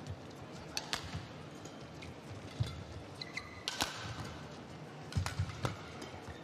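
Badminton rally: rackets strike the shuttlecock with several sharp cracks a second or more apart, while the players' feet thud and shoes squeak briefly on the court mat.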